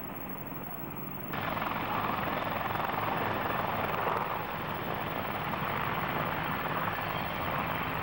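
Military helicopters flying low: the rotor and turbine sound of an AH-64 Apache, then, after a sudden cut about a second in, louder rotor and turbine noise as CH-146 Griffon helicopters pass close.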